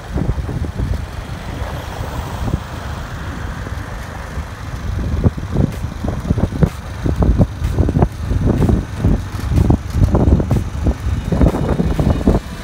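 Road vehicle driving, heard on board: a steady low engine and road rumble, with irregular short thumps and knocks from about five seconds in.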